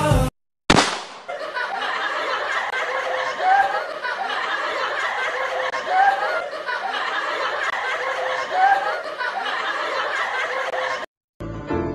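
A steady bed of laughter, with a short rising sound recurring about every two and a half seconds, after a sharp click about half a second in; it cuts off shortly before the end.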